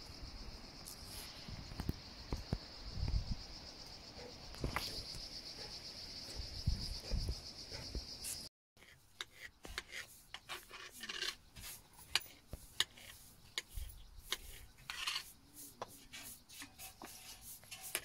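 Insects droning steadily on one high note over low wind rumble, which stops abruptly about halfway through. Scattered light clicks and taps follow.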